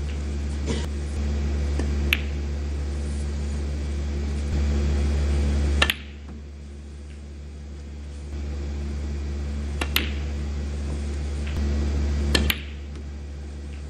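Snooker balls clicking as shots are played: about five sharp clicks of cue tip and ball striking ball, the last a quick double click, over a low steady hum.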